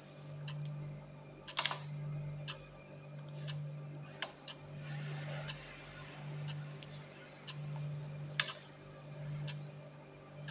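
Mechanical 24-hour segment timer switch humming low, with a soft tick about once a second. A few louder clicks come as its setting pins are pressed in with a screwdriver tip.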